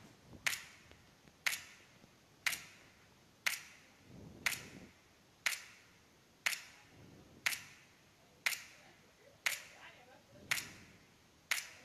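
Sharp, evenly spaced clicks, about one a second, ticking steadily like a clock.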